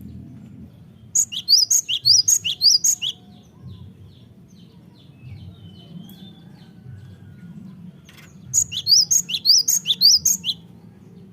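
Cinereous tit (gelatik batuk) singing: two bouts of rapid, high-pitched repeated notes, each about two seconds long. The first comes about a second in and the second near the end.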